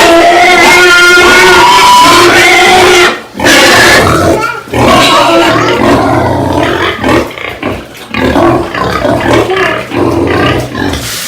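Pigs squealing and grunting loudly and irregularly. Before them comes about three seconds of a loud, steady, held pitched sound that breaks off suddenly.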